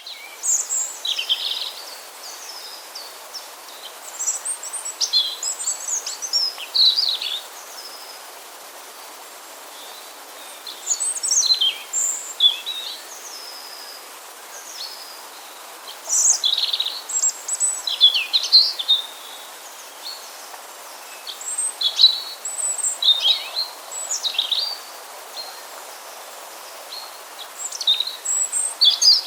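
European robin singing: about six short, high-pitched warbling phrases separated by pauses of two to three seconds, over a steady background hiss.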